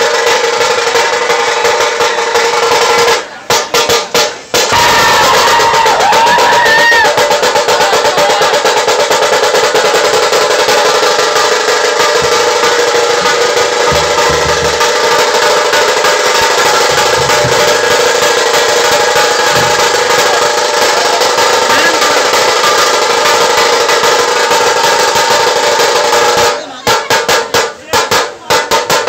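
Dhol-tasha troupe drumming loudly: rapid tasha rolls over the dhol beat, breaking off in short stutters about three seconds in and again near the end.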